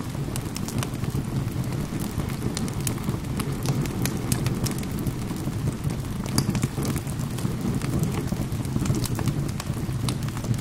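Wood fire crackling in a fireplace, with frequent sharp pops and snaps over a steady rain-like wash and a low rumble.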